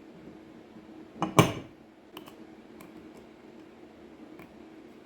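Steel lathe-chuck parts clanking as they are handled during reassembly: one loud metallic clank with a short ring about a second and a half in, then a few light clicks.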